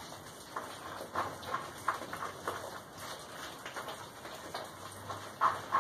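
A scrap-steel stir stick scraping and knocking around a plastic bowl of thick refractory cement paste (Satanite) as it is mixed by hand to work the clumps out. The strokes come unevenly, and the loudest is near the end.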